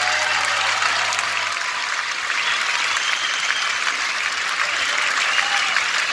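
Large concert audience applauding, with cheers mixed in.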